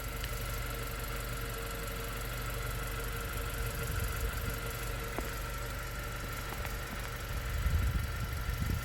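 Honda Civic (FL1) running: a steady low rumble with a faint steady hum over it, swelling slightly near the end.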